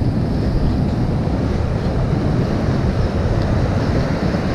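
Steady wind buffeting the microphone over ocean surf breaking on the beach, a constant rushing noise heaviest in the low end.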